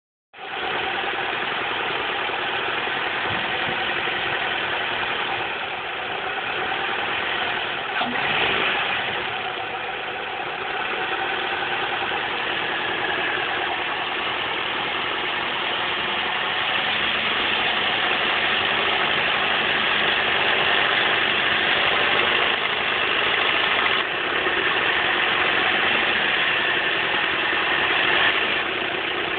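2004 Chevrolet Cavalier's 2.2 L Ecotec inline-four running steadily at idle, with a rattle from the timing chain.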